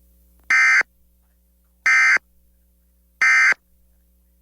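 Emergency Alert System end-of-message data tones: three identical short, shrill digital bursts, evenly spaced about 1.3 seconds apart, marking the end of the alert.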